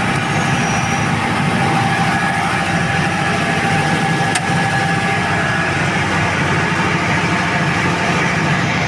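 Tsuzumi TDG 62.5 kVA super-silent diesel generator set running steadily, its four-cylinder turbo diesel engine holding a constant speed. A single faint click is heard about four seconds in.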